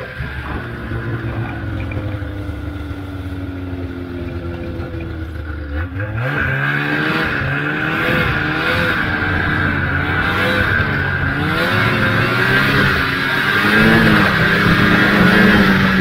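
Old Ski-Doo Formula Z snowmobile's two-stroke engine running while riding. It holds a steady speed at first, then revs up about six seconds in and runs louder, rising and falling with the throttle, and settles at a higher steady pitch near the end.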